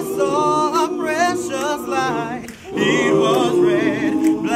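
A cappella vocal group singing: a lead melody moving over sustained chords held by the other voices, with a short break about two and a half seconds in.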